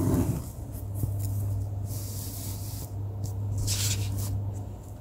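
Ballpoint pen scratching and rubbing across paper in a few short strokes, over a steady low hum.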